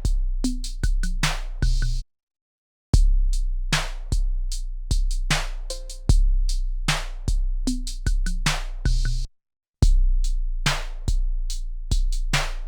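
A drum-machine beat played back from an Akai MPC sampler: deep, long-ringing sub-bass kicks under snappy hits and short pitched tones, in a steady repeating pattern. The beat cuts off twice, about two seconds in and again about nine seconds in, and starts over after a short silence each time.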